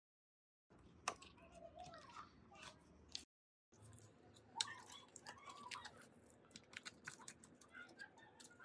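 Faint, irregular clicks, taps and rattles of small hard parts being handled, in two stretches broken by a moment of dead silence about three seconds in.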